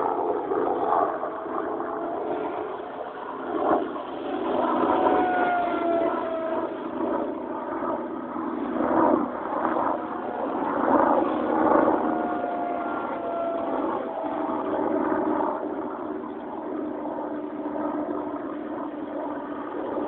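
Electric RC P-51 Mustang model's motor and propeller whining as it flies by, the pitch sliding down on each of two passes. Under it is a steady rushing noise that swells in gusts.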